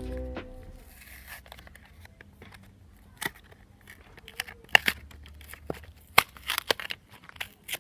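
Plastic packaging handled by hand: crinkling and tearing with scattered sharp clicks and taps.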